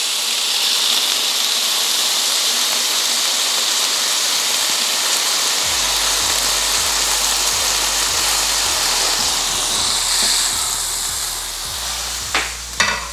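Beef smash burger patties sizzling on a Blackstone E-Series electric griddle's nonstick plate at about 400°F: a steady hiss of frying fat. A low hum comes in about halfway, and a few short clicks sound near the end.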